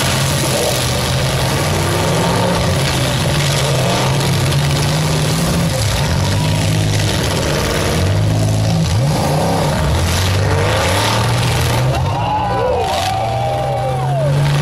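Several demolition derby cars' engines running hard and revving up and down as the cars drive and ram one another, with a few sharp bangs of impacts from about eight seconds on.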